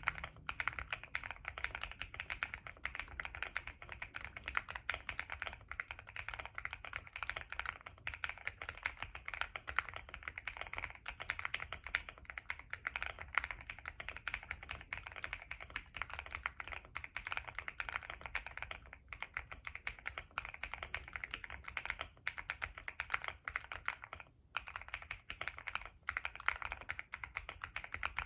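Continuous fast typing on a Monsgeek M1 mechanical keyboard fitted with stock CIY Naraka switches with POK stems, a POM plate, plate and case foam, an IXPE layer and a tape mod. The key strokes run together in a steady stream, with two brief pauses in the second half.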